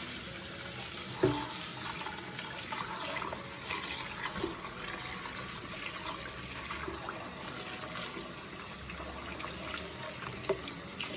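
Kitchen tap running steadily into a pot of rice as the rice is washed, with a few light knocks along the way.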